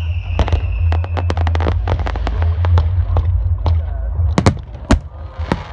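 Aerial fireworks bursting overhead: a rapid string of sharp cracks and crackling, with a few loud bangs near the end. A falling whistle fades out about a second in, over a steady low rumble.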